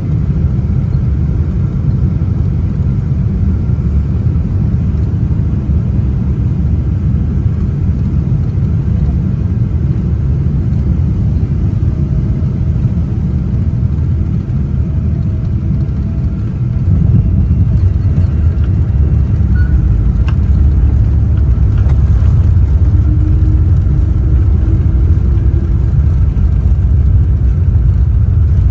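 Steady low rumble of a Boeing 777-200 in motion, engine and airflow noise heard from inside the cabin, growing louder a little past halfway through.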